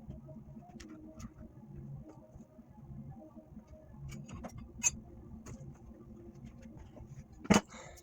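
Scattered light clicks and taps from handling tools and metal parts, with a sharp tick about five seconds in and one louder knock near the end.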